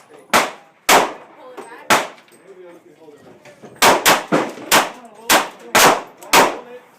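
Handgun shots at a shooting range: about ten sharp reports at irregular intervals, several of them in quick succession, each with a brief ring-out.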